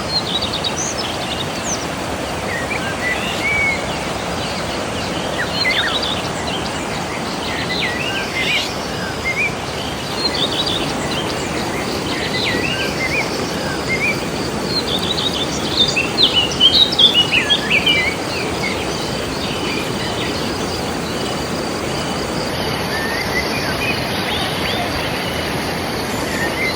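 River water flowing steadily, with birds chirping over it in scattered short calls that come thickest about two thirds of the way through. A faint steady insect buzz joins in the later half.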